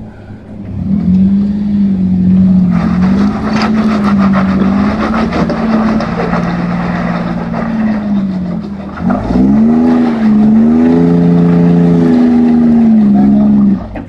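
Jeep Wrangler JK Unlimited Rubicon engine revving under load as it climbs a steep rock ledge. The revs waver, rise sharply about nine seconds in and hold high, then drop off suddenly near the end.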